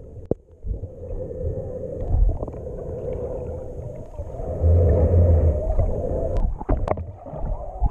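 Muffled underwater sound picked up by a submerged action camera: a low rumble of water moving as swimmers kick, louder for a couple of seconds in the middle, with a few sharp clicks.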